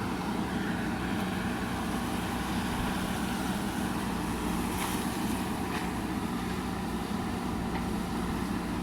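JCB backhoe loader's diesel engine running steadily, with a couple of faint knocks about five and six seconds in.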